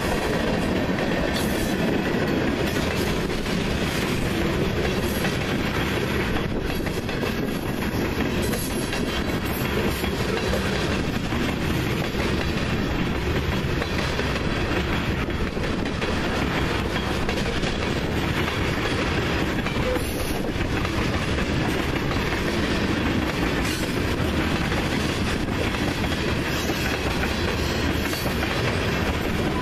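Freight train tank cars and covered hopper cars rolling past: steady wheel-on-rail noise with the clickety-clack of wheels over rail joints.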